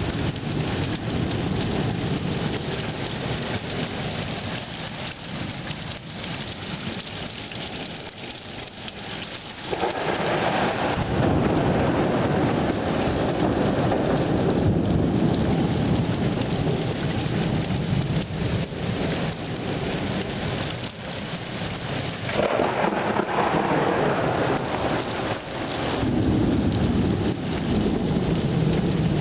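Heavy rain pouring steadily, with thunder rumbling. A loud, long roll of thunder sets in suddenly about ten seconds in, and further swells follow later.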